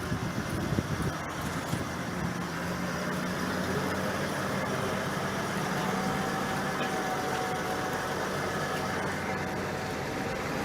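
Tractor engine running steadily, with a faint whine that comes in a few seconds in and slowly rises in pitch.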